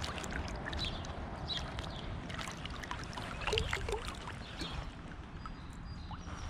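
Shallow river water sloshing and splashing irregularly as someone wades through it, over a steady low rumble.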